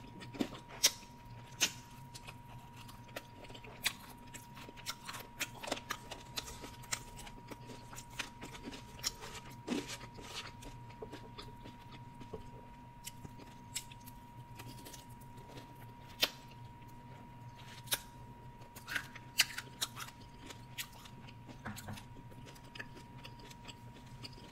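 Close-miked chewing with irregular wet mouth clicks and smacks, over a faint steady electrical hum.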